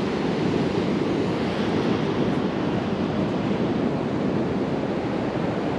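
Pacific Ocean surf washing onto the beach as a steady rush of noise, with some wind on the microphone.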